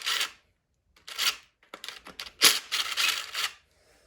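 Hand tool working at the oil pump bolts of a GM 5.3 LS engine: several short rasping, scraping bursts, the longest a little past the middle.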